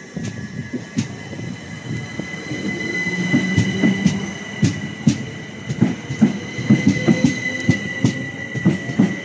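Electric multiple-unit train on the rails, its wheels clicking over rail joints and pointwork, louder and more often from about three seconds in. A steady high-pitched whine runs throughout.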